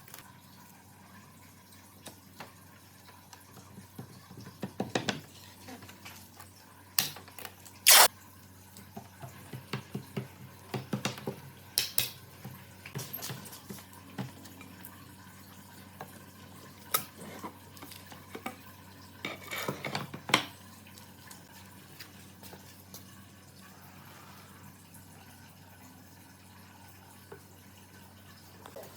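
Scattered knocks and clatter of hard objects being handled, loudest in a sharp knock about eight seconds in, with busy bursts of clattering around the middle and a quieter stretch near the end.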